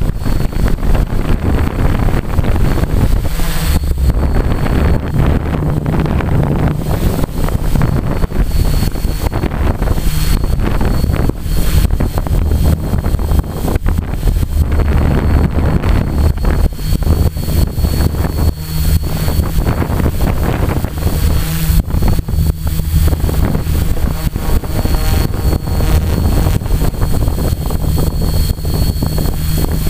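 Quadcopter's electric motors and propellers running steadily, heard from the camera on board, with a thin high motor whine above the hum and heavy wind buffeting on the microphone.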